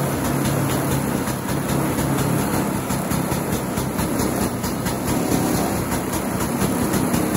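Vintage snowmobile's two-stroke engine idling steadily.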